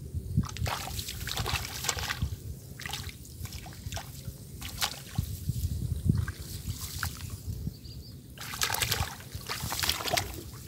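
Shallow water splashing and trickling in irregular bursts as it is stirred and scooped, with a heavier run of splashing about eight seconds in.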